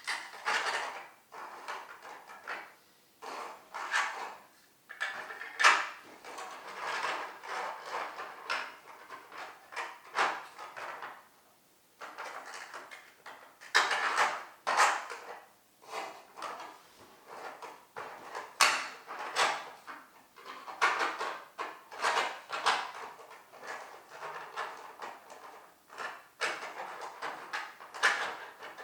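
Hard 3D-printed plastic parking lot tiles clattering and clicking as they are handled and fitted together, an irregular run of knocks and rattles.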